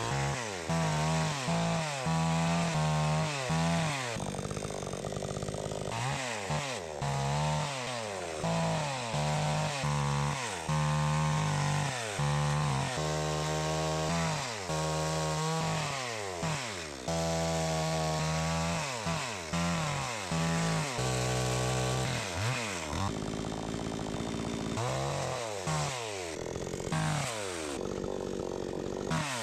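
Gasoline chainsaw cutting logs, its engine pitch repeatedly rising and falling as it revs up and drops back during the cuts.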